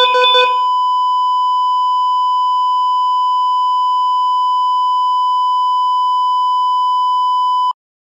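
Heart-rate monitor sound effect: a brief flurry of rapid beeps over a steady tone, then one continuous, unbroken high monitor tone, the flatline that signals no heartbeat. The tone cuts off suddenly near the end.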